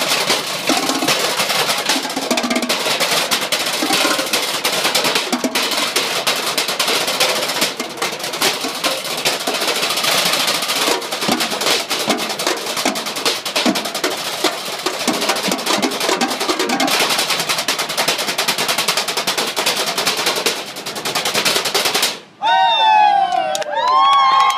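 Drumline beating galvanized metal trash cans and buckets with drumsticks in fast, dense rhythms. About two seconds before the end the drumming cuts off and loud, high gliding tones follow.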